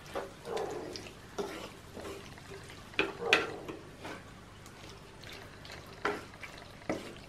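Wooden spatula stirring diced ash gourd and curd in an earthenware clay pan, scraping irregularly against the pot. The loudest scrapes come about three seconds in.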